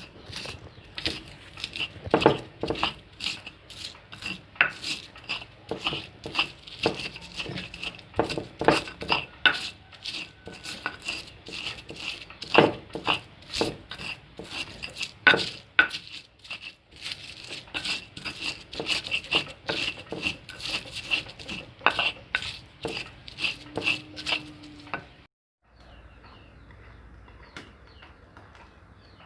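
A kitchen utensil repeatedly knocking and scraping against a bowl, about two to three clinks a second, stopping abruptly near the end.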